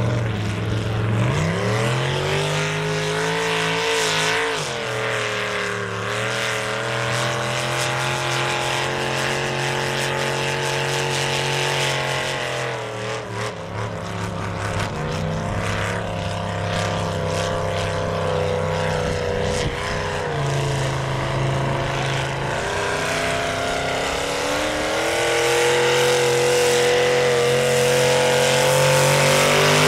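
Lifted mud-racing truck's engine running hard at high revs. The revs climb in the first few seconds, hold steady, sag around the middle, then climb again in steps near the end.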